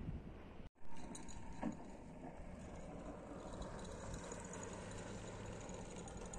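A motor running steadily, with a couple of light knocks about a second in, following a brief dropout.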